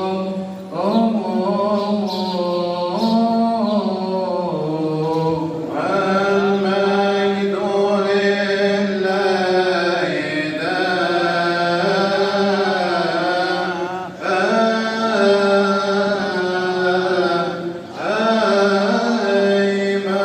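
A deacon's solo voice chanting a long, melismatic Coptic liturgical melody, with held notes that waver and glide between pitches and short breaths between phrases.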